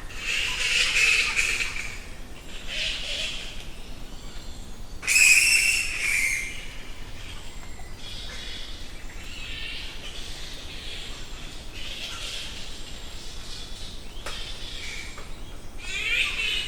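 Bats flying: a fast wing flutter with high squeaks and chirps, coming in several passes. The loudest pass comes about five seconds in.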